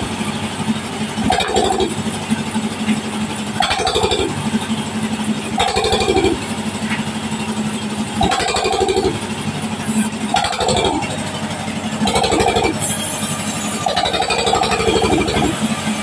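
Sawmill log band saw running and cutting a log: a steady low machine hum with a surge in the cutting noise about every two seconds.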